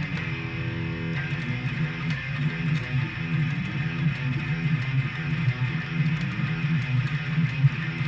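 Electric guitar being played, a low riff repeating steadily.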